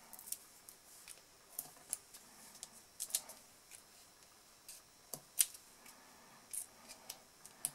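Hands handling cardstock and paper pieces while fixing a sentiment onto a card with foam adhesive dots: scattered light clicks, taps and short paper rustles, with slightly louder ticks about three and five seconds in.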